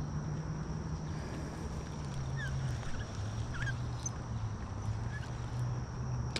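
Spinning reel being cranked to retrieve the line, giving a steady low gear whir that drops in pitch a couple of times as the cranking slows. A steady high insect whine and a few faint bird chirps sit behind it.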